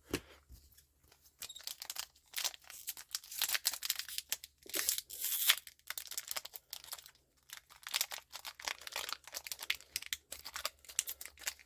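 An Argent Saga trading card booster pack wrapper being torn open and crinkled by hand, with irregular crackling and tearing throughout, loudest about halfway through.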